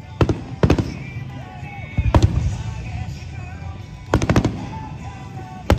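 Aerial firework shells bursting in a series of sharp bangs, some single and some in quick clusters about every two seconds, over music played for the show.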